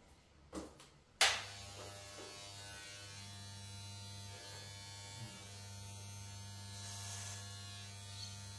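Electric hair clipper switched on about a second in and running with a steady buzz.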